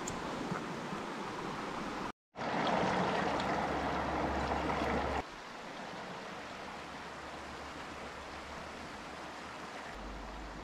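Shallow creek running over rocks: a steady rush of flowing water. About two seconds in it cuts out for a moment, comes back louder for about three seconds, then drops to a quieter level.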